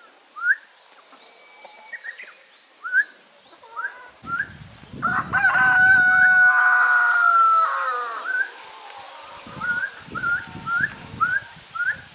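Short, rising whistled notes repeated again and again, a chicken keeper's whistle calling free-range hens into their coop. About five seconds in, a rooster crows loudly for about three seconds, the loudest sound here.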